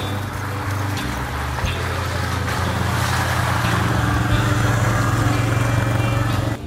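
A four-wheeler (ATV) engine running at low speed behind a dog team, growing louder through the middle and cut off abruptly at the end.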